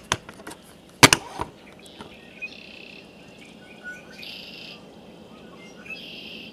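A songbird singing a short, high, buzzy phrase three times, about two seconds apart, over a faint outdoor hiss. A few sharp clicks come about a second in and are the loudest sounds.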